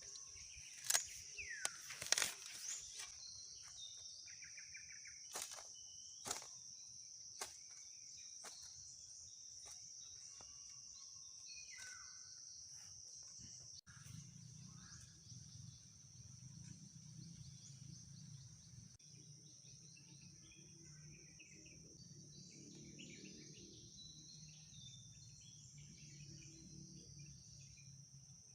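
Faint outdoor ambience: a steady high insect drone with scattered bird chirps. Several sharp clicks or knocks come in the first few seconds, and a low hum joins about halfway through.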